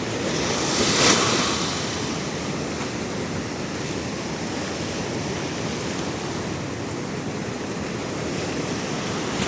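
Pacific surf washing up the beach, one wave surging and breaking about a second in, then a steady wash; it is eating the sand out from under a beachfront building's foundation.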